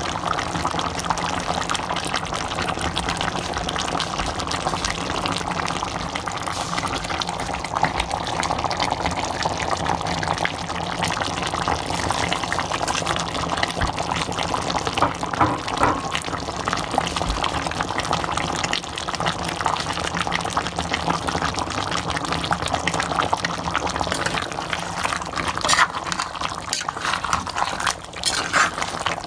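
Chicken curry simmering in the pan: a steady bubbling and sizzling full of small pops, with a few louder clicks near the end.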